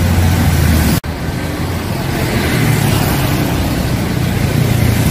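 Roadside traffic: a large coach bus engine running low, with cars passing close by. The sound cuts out for an instant about a second in, then a steady rumble of bus engines and traffic carries on.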